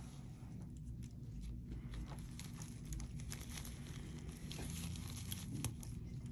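Steady low room hum with faint scattered clicks and rustles from handling surgical instruments and gauze while a wound is stitched.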